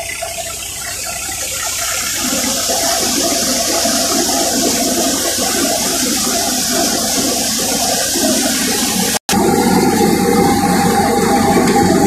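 Belt-driven wheat thresher running: a steady rushing noise with a machine drone under it. About nine seconds in the sound drops out for an instant and comes back as a steadier hum with a clear tone.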